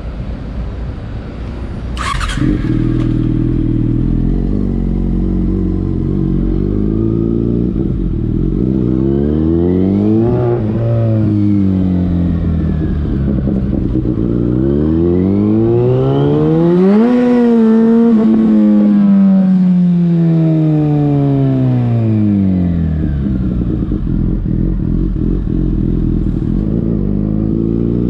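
Yamaha FZ6's 600 cc inline-four engine through a LeoVince aftermarket exhaust, revving up and down as the bike accelerates and slows. The pitch climbs to a peak about ten seconds in, rises again to a higher peak a little later and falls away slowly, then climbs once more near the end. A short sharp click about two seconds in.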